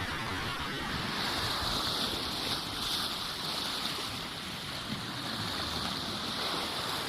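Sea surf washing on the shore with a steady hiss, and wind buffeting the microphone.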